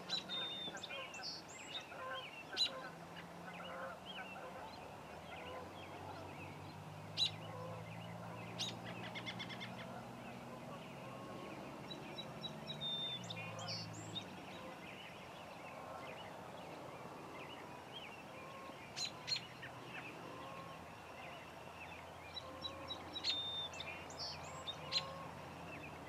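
Birds calling at dusk: many short, high chirps and whistles scattered throughout, with faint honking calls repeating in the background and a faint low drone underneath.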